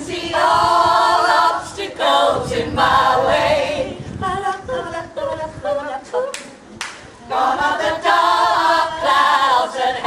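Women's choir singing a cappella, in phrases with brief breaths between them and a longer pause near the middle.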